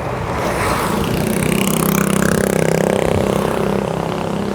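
Bajaj Discover single-cylinder motorcycle engine running steadily, growing a little louder toward the middle. No clicking comes from the rear wheel: its bearing, reseated with grease in a tightened bore, now runs quietly.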